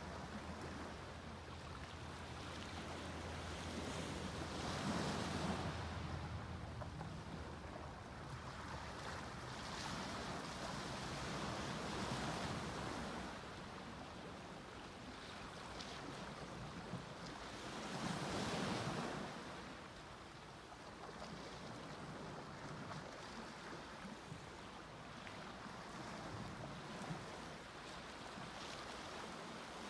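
Sea waves breaking and washing up a beach, each surge swelling and fading every few seconds.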